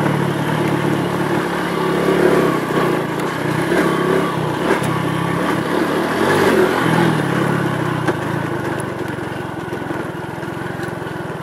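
Honda Pop 110i's small single-cylinder four-stroke engine running under way, recorded from the moving bike, its pitch rising and falling with the throttle. It gets quieter in the last few seconds.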